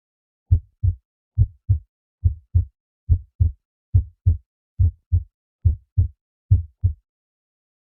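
Heartbeat sound effect: eight slow double thuds, lub-dub, at a steady pace of a little over one beat a second, starting about half a second in and stopping about a second before the end.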